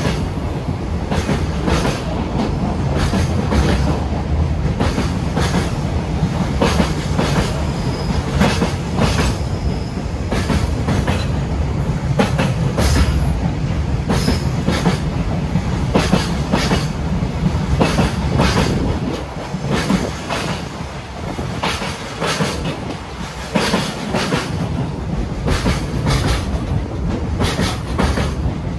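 Container freight train of Koki container wagons rolling past, the wheels clacking over rail joints in a long run of clicks over a steady rumble.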